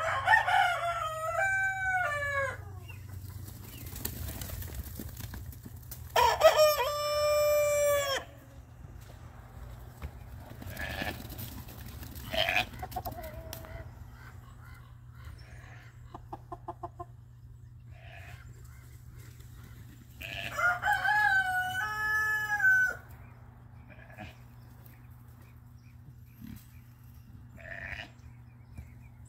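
A rooster crowing three times, each crow about two seconds long with a stepped, falling pitch: one at the very start, one about six seconds in and one about twenty seconds in.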